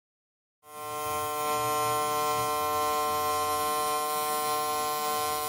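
MIG welding arc on steel burning steadily: a continuous buzzing hiss with a steady electrical hum, starting about half a second in.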